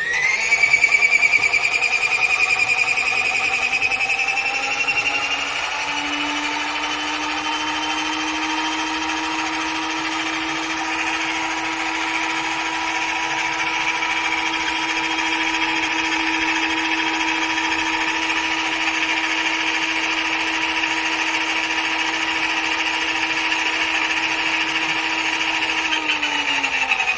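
Small electric motor of a mini portable washing machine running with a steady, multi-toned whine after spinning up, then winding down right at the end.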